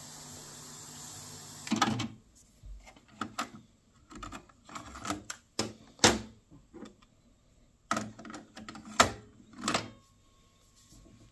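Yamaha KX-380 cassette deck: a steady tape hiss with low hum cuts off about two seconds in as the deck is stopped. Then come a run of plastic clicks and clacks as the cassette door is opened, a cassette is taken out and another put in, and the door is shut, with the sharpest clacks about six and nine seconds in.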